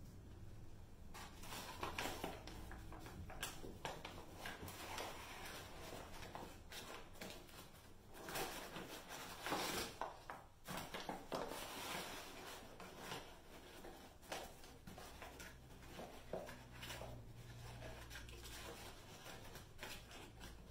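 Flour being scooped out of a paper flour bag with a measuring cup: the paper bag rustles and the cup scrapes and scoops in irregular bursts.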